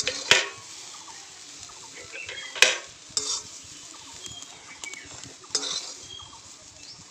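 An aluminium cooking pan knocked and scraped as cooked bottle gourd leaves are emptied from it onto a stone grinding slab, with two sharp knocks, one just after the start and a louder one about two and a half seconds in, and a few shorter scrapes after.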